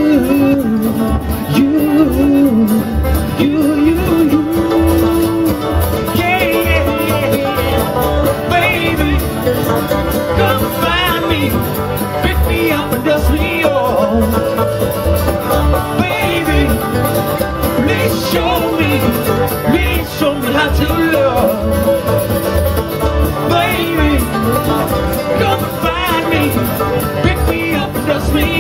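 Live bluegrass band playing an instrumental break: banjo rolls and acoustic guitar over a steady plucked upright-bass beat.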